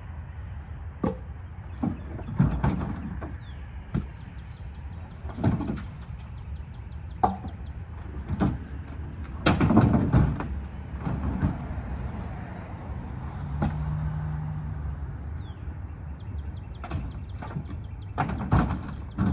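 Cherry log rounds being stacked in a pickup truck's bed: irregular wooden knocks and thuds as the rounds are set down against each other and the metal bed, with a few heavier clunks.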